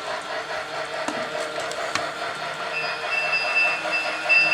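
Lionel G-gauge Polar Express toy train running around its track, its motor and wheels making a steady sound with a fast even pulse. About three seconds in a high, steady tone starts and breaks off and on.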